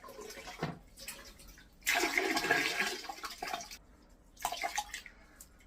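Water squeezed from a sponge pouring and splashing into the toilet bowl in several bursts, the longest about two seconds, as the cistern is emptied by hand.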